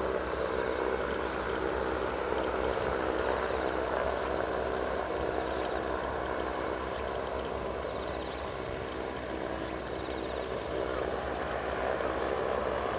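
Cessna 172's single propeller engine running steadily at takeoff power as the aircraft rolls down the runway on its takeoff run.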